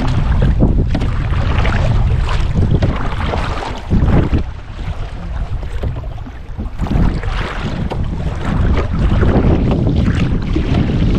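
Wind rumbling on the microphone over water splashing and lapping around a canoe as it is paddled.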